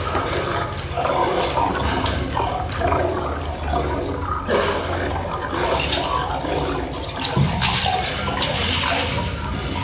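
Continuous rushing, water-like noise over a low steady rumble, with scattered brief rattles, from the stage performance's sound.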